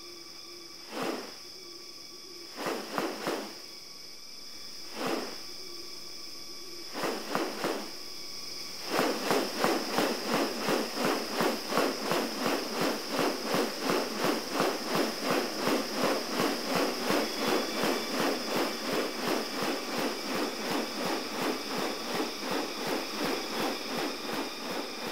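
Rainforest background with a steady high insect drone. Over it come a few short rasping bursts, then from about nine seconds in a fast, even run of rasps, about two a second, which is the loudest sound.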